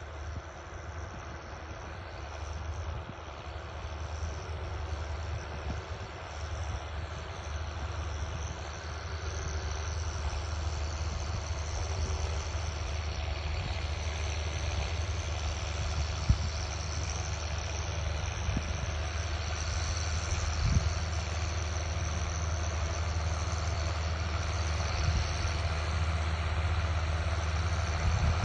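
Diesel engines of a row of John Deere tractors pulling cultivators through soil, a steady low drone that grows louder as they approach. A couple of brief sharp knocks sound in the second half.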